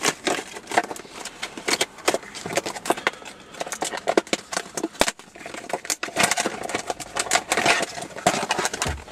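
Irregular clicking, tapping and rustling of small parts being handled: the auxiliary-input interface and its cable being picked up and readied by hand.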